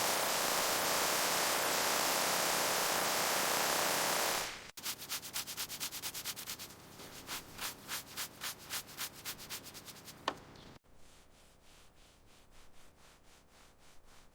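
Sanding on a car body being restored: a steady hiss that cuts off after about four and a half seconds, then rhythmic rubbing strokes about four a second, with a brief ring about ten seconds in, after which the strokes go on much fainter.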